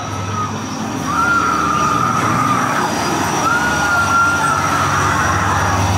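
Haunted-maze sound effects: a high wailing tone that slides up and then holds for a second or more, twice, over a low steady drone.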